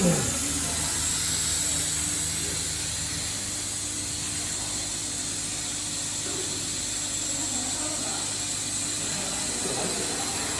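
CO2 laser cutting machine running: a steady hiss of blowing air with a low machine hum beneath it.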